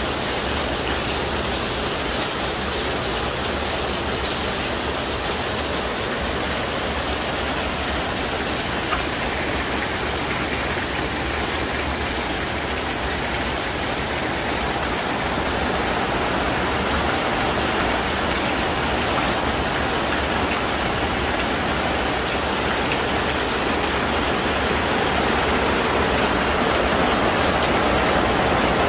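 Heavy rain pouring onto a flooded paved courtyard: a steady, even rushing hiss of falling and splashing water that grows a little louder in the second half.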